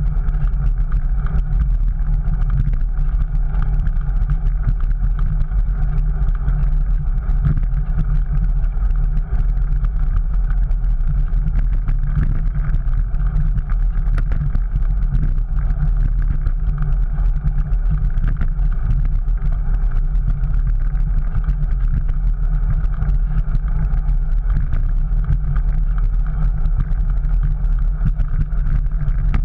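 Steady, muffled low rumble of a bicycle riding over brick paving, heard through a bike-mounted GoPro.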